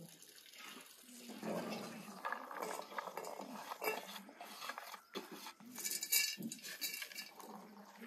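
Pomegranate seeds tipped from a wooden bowl into an enamel bowl of rice, with light clinks and clatter of bowl and seeds, then hands stirring and rustling the grains. The clatter is busiest about six seconds in.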